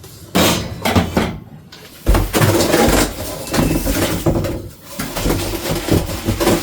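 Packaging being handled while parts are unpacked from a box: rustling and crinkling with small knocks and clatter, sparse at first and near-continuous from about two seconds in.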